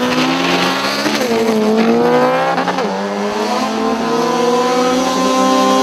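Turbocharged LS V8 in a Honda Civic EG hatchback accelerating hard down a drag strip. Its pitch climbs, drops at gear shifts about one second and nearly three seconds in, then keeps climbing more slowly.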